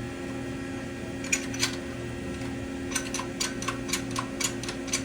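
A series of sharp metallic clicks from a dimpling punch and box fixture being worked to press a dimple into sheet steel: two clicks a little over a second in, then a quicker irregular run of about three to four a second. A steady electrical hum runs underneath.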